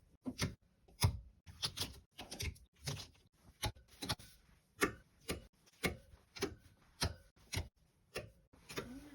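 Clothes hangers clicking against each other and the closet rod as clothes are hung up, a run of sharp clacks about two to three a second.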